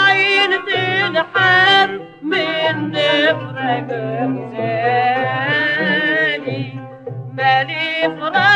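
Tunisian fondou folk song: a female singer's ornamented, wavering vocal line with wide vibrato, sung without clear words, over a steady low accompaniment.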